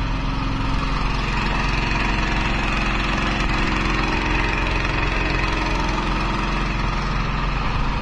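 An engine running steadily: a continuous low mechanical hum with no change in speed.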